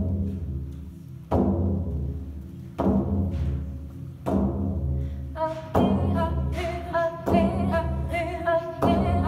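Inuit frame drums (qilaut) struck with beaters in a slow, steady beat, about one deep, ringing stroke every second and a half. About five seconds in, women's voices begin singing over the drumbeat.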